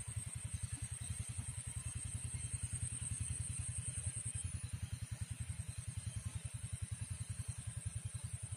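A small engine running steadily at idle, a low, fast and even chugging.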